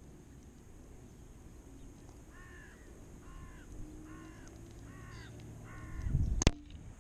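A crow caws five times in a row. Near the end comes a single sharp crack as the .177 FX Dreamline Compact air rifle is fired and the pellet strikes the paper target.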